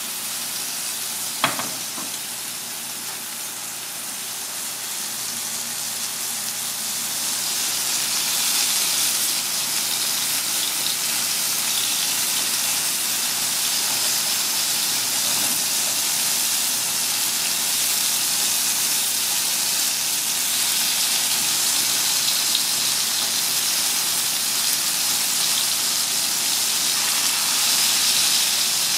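Pieces of John Dory fish frying in hot oil in a pan, a steady sizzle that grows louder several seconds in. One sharp tap about a second and a half in.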